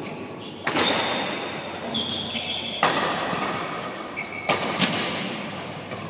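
Doubles badminton rally: three sharp racket-on-shuttlecock smacks, about a second and a half to two seconds apart, with short high squeaks of court shoes on the floor between them.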